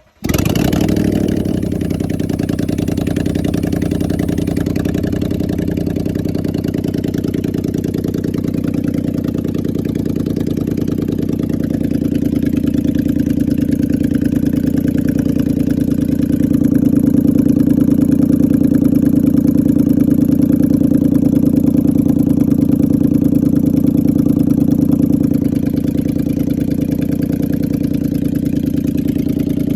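Toyota Land Cruiser V8 engine running steadily at idle, a little louder from about halfway; it is being checked for a suspected misfire.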